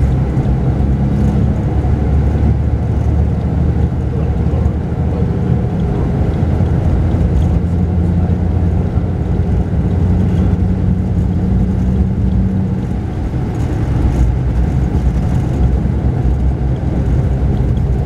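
Mercedes-Benz O-500RSD coach's rear-mounted diesel engine running at cruising speed, heard from inside the cabin of the moving double-decker as a steady low drone mixed with road rumble, its pitch shifting slightly.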